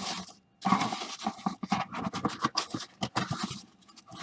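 Hands rummaging through foam packing peanuts in a box, a dense run of rustling and scratching that thins out near the end.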